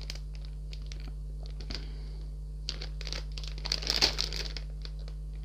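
Clear plastic bags of model-kit runners crinkling as they are handled, in scattered bursts, with the loudest crinkling about four seconds in.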